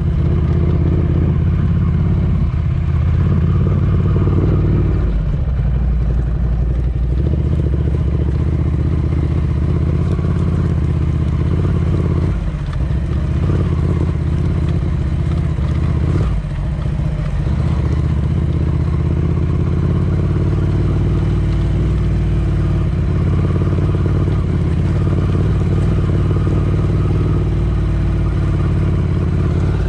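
Ducati Scrambler Desert Sled's air-cooled 803 cc L-twin engine running steadily while riding, dipping briefly a few times.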